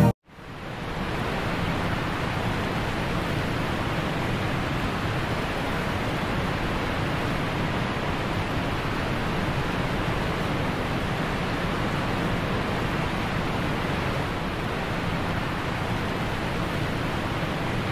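A steady, even rushing noise with no tone or rhythm, fading in over about the first second and then holding level.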